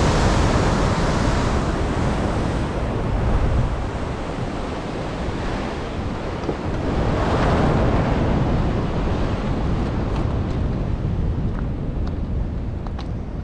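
Ocean surf washing onto the shore, surging at the start and again about seven or eight seconds in, with wind buffeting the microphone throughout. A few faint clicks near the end.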